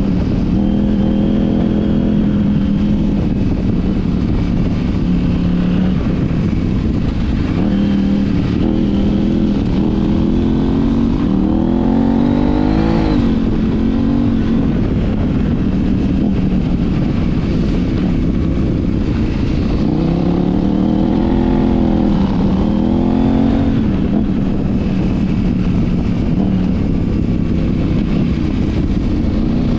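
KTM 790 Adventure R's parallel-twin engine, breathing through an Arrow titanium slip-on exhaust, running at speed on a dirt road over a steady rush of wind noise. Its pitch climbs and falls as the throttle is worked, in one spell about a third of the way in and another about two-thirds in.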